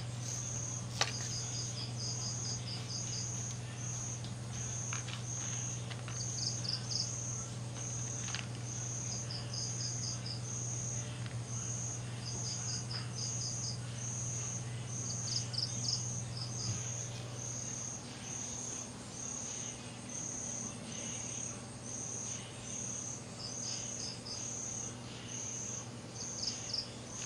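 Night insects, crickets, chirping: one gives a high, regular chirp about one and a half times a second, while another adds short rapid trills every few seconds. A low steady hum runs underneath.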